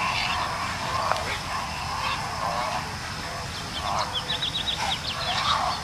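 Birds calling, with a quick run of short, high chirps about four seconds in.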